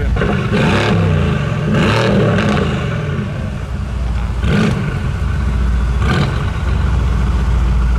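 A high-performance car engine idling, with four or five short throttle blips that rise and fall quickly in pitch.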